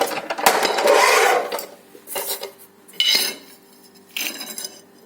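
Porcelain tile scraping and clattering against a Matrix 900 manual tile cutter: a long scraping pass at the start, then three shorter clatters about a second apart.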